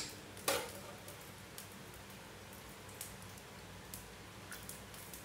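A metal spoon clinks sharply against a ceramic serving bowl once, about half a second in, with a short ring. After that come a few faint small ticks as the spoon shifts the cooked fish in the bowl.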